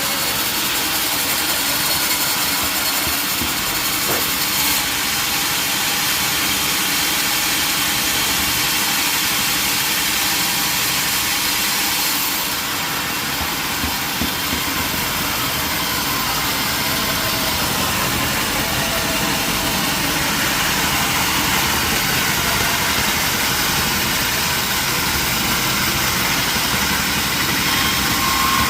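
Old sawmill running steadily: a steady engine-and-machinery drone with no break, easing slightly about twelve seconds in.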